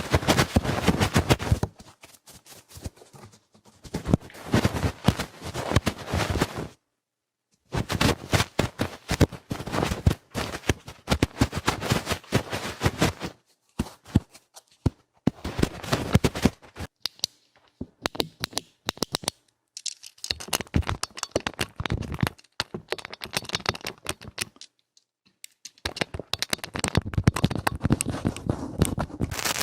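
Close-miked ASMR trigger sounds: rapid crackling, tapping and scratching clicks in bursts, broken by abrupt edits with brief silences about a quarter of the way in and again near the end.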